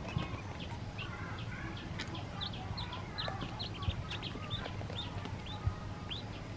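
Newly hatched ducklings peeping, many short high chirps overlapping at several a second, with a few sharp knocks.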